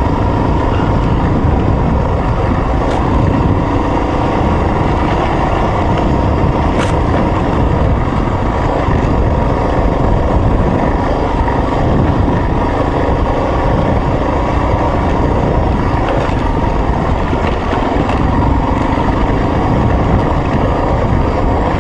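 Off-road motorcycle engine running steadily while riding along a dirt trail, with heavy wind noise over the microphone.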